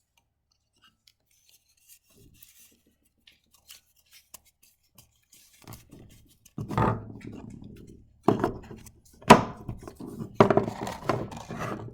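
Rubbing, scraping and clattering of hard objects being handled. It is faint for the first few seconds, then louder and irregular from about six and a half seconds in, with a sharp knock a little after nine seconds.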